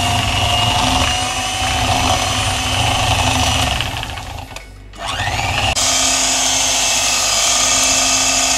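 Electric hand mixer whipping chilled cream in a glass bowl, its motor whining steadily. The motor stops for a moment about four and a half seconds in, then spins back up with a rising whine.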